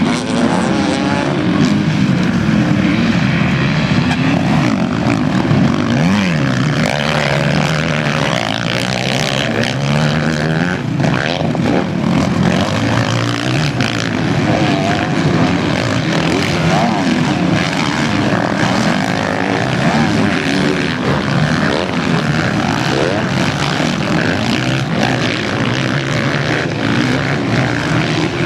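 Several motocross bikes racing, their engines revving up and down in overlapping rising and falling pitches as they accelerate and back off.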